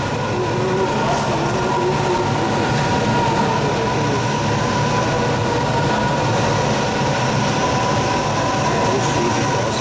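Steady industrial din of a car assembly hall: a continuous machinery and ventilation hum with a held tone running through it.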